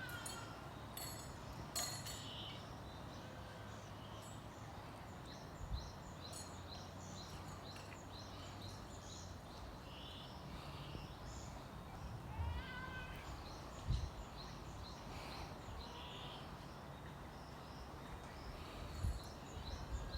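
Outdoor ambience at a Japanese macaque enclosure, with many short high chirps throughout. A few pitched, gliding monkey coo calls come near the start and again about two-thirds of the way through. A sharp click near the start and a few low thumps are heard.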